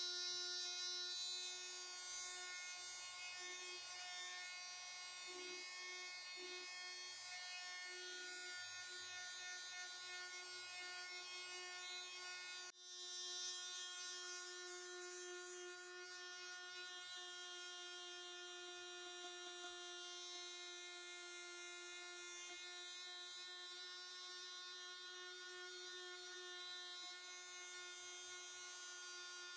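Electric power sander running steadily with a buzzing hum as it sands a planked wooden model ship hull, with a brief break about halfway through.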